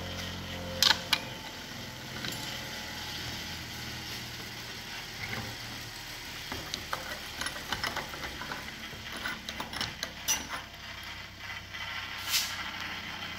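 Metal clicks and rattles of a drill-bit sharpening jig's clamp being unscrewed and the twist drill bit lifted out of it: two sharp clicks about a second in, light scattered clicking in the middle, and one louder click near the end.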